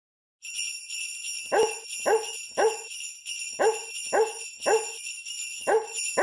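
Sleigh bells jingling steadily, starting about half a second in, with a dog's barks in strict rhythm: groups of three evenly spaced barks, each group followed by a pause, like a barked tune in a novelty Christmas track.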